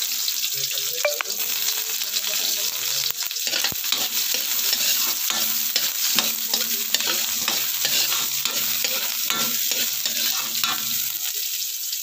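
Chicken frying in hot oil in a pan: a steady loud sizzle thick with crackling spatter pops.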